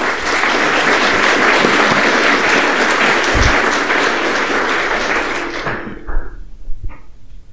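Audience applauding, dying away about six seconds in.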